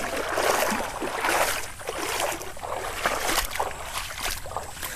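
Irregular splashing and swishing through shallow water and wet grass as a hooked peacock bass is hauled ashore.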